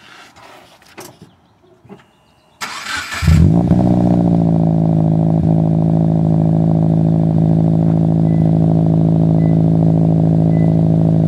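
A 2017 Subaru Impreza's 2.0-litre flat-four, breathing through a newly installed Nameless aftermarket exhaust, is cranked by the starter for about half a second and catches about three seconds in. The engine note rises briefly, then settles into a loud, steady idle, heard right at the tailpipe.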